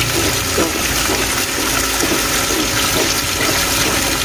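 Water gushing out of a draining circular fish pond's outlet and splashing onto concrete below: a loud, steady rush of falling water.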